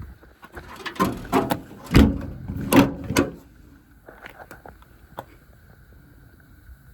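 Clunks and thuds of a truck's cab door being swung and shut, a quick run of about five knocks with the loudest near the middle.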